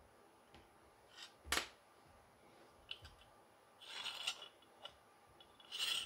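Faint handling noises of a USB SSD external case: a few small clicks and a knock about a second and a half in, then two short scraping rubs as the circuit-board tray slides out of the case near the end.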